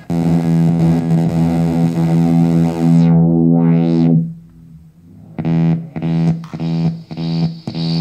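Korg Monotron Delay analogue ribbon synthesizer playing a sustained buzzy low note. Its brightness sweeps down and back up about three seconds in, then the note fades. From midway the same note pulses in quick repeats, a few a second, and a high whistling tone rises in near the end.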